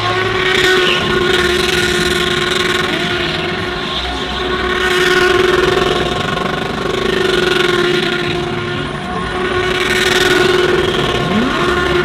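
GT3 race car engine held at high revs, the sound swelling and fading every few seconds, with a short rising rev near the end.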